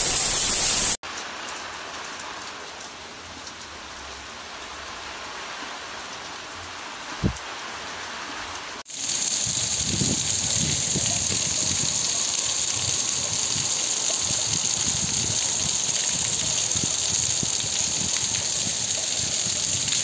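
Heavy rain falling, a steady hiss of water. About a second in the sound cuts to a quieter stretch of rain with one dull thump near seven seconds, then about nine seconds in it cuts to louder, hissier rain.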